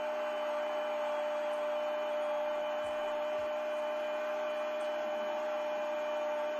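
A football commentator's long, drawn-out 'goooal' call, held on one steady pitch.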